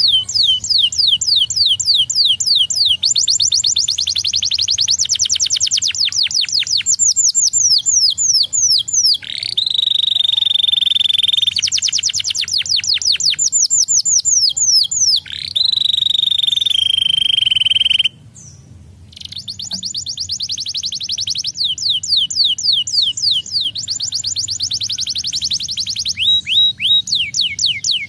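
Domestic canary singing: fast trills of rapidly repeated notes alternating with long, steady whistled tones, with a brief pause about two-thirds of the way through.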